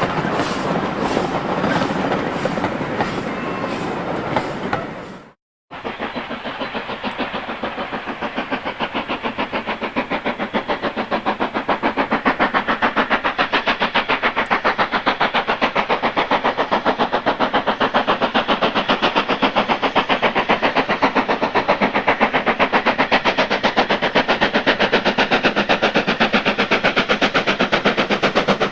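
Steam locomotive passing with a slow regular beat, then, after a sudden cut, another steam locomotive working with fast, even exhaust beats that grow louder over a few seconds and hold steady.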